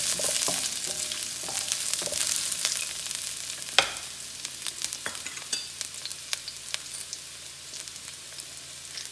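Chopped shallots and garlic sizzling in hot oil in a steel wok, stirred with a wooden spatula for the first two or three seconds. The sizzle fades gradually, with scattered sharp pops and crackles, the loudest about four seconds in.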